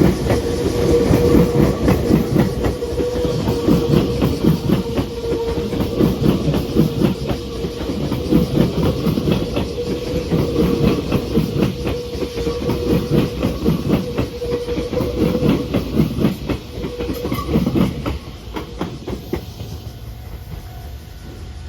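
Meitetsu 2000 series μSKY electric train passing close by, its wheels clattering rapidly over the rail joints with a steady tone underneath. It is loud until about 18 seconds in, then drops away as the train leaves.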